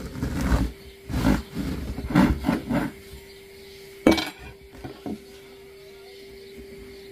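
Serrated bread knife sawing through a crusty loaf on a wooden board: several rasping strokes in the first three seconds. A sharp knock on the board comes about four seconds in, followed by two light clicks.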